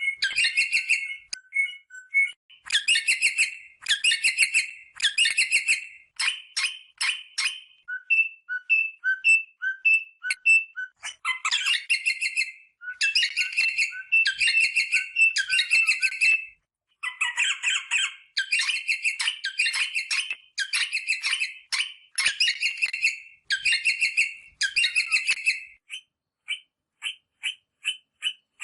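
Rosella parrot calling: repeated bursts of fast chattering notes, each about a second long, broken by runs of short single notes about a quarter of the way in and again near the end.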